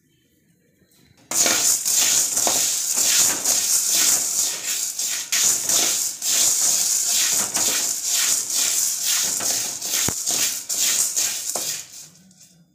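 Dry brown chickpeas rattling and scraping against a metal pan as they are stirred with a slotted metal spatula while dry-roasting on low flame. The stirring starts about a second in, comes in repeated sweeps, and stops near the end.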